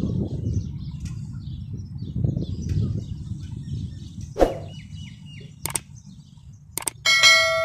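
Subscribe-button overlay sound effect: a sharp knock, two mouse clicks, then near the end a loud bell ding that rings on and fades. Before it, a low rumble like wind on the microphone and faint bird chirps.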